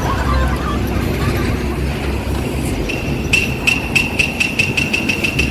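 A steady low rumble. About three seconds in, a high ringing starts and is struck rapidly, roughly five times a second, like a fast bell.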